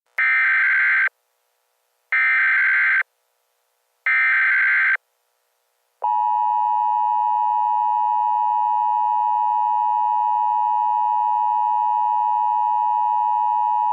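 Emergency Alert System SAME header: three one-second bursts of warbling data tones, about two seconds apart. Then the EAS two-tone attention signal, a steady electronic tone held for about eight seconds, which cuts off abruptly.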